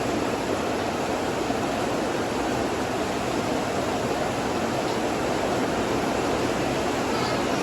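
Heavy rain falling, a steady rushing hiss.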